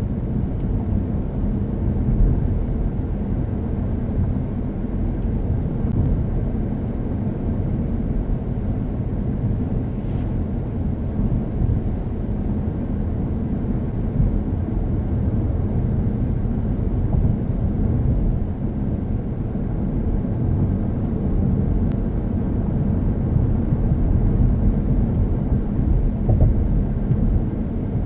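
2012 Chevrolet Cruze with the 1.4-litre turbocharged four-cylinder, driving along: a steady low rumble of road and engine noise with no marked change in pace.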